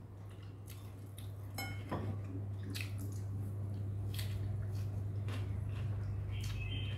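Light clicks and clinks of a porcelain bowl, saucer and food being handled while eating, a few separate ones spread over several seconds, over a steady low hum.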